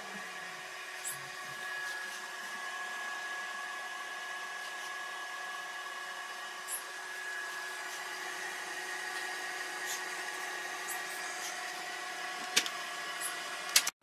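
Egg incubator and hatcher machines running, their fans and motors giving a steady hum with a high whine over it. Two sharp clicks come near the end.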